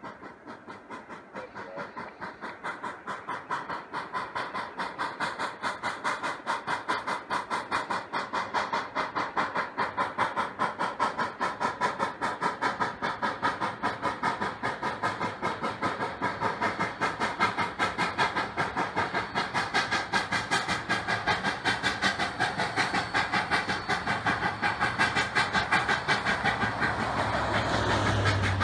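Durango & Silverton No. 476, a K-28 2-8-2 narrow-gauge steam locomotive, working hard: a quick, even beat of exhaust chuffs that grows steadily louder as the train approaches. A low rumble swells in near the end.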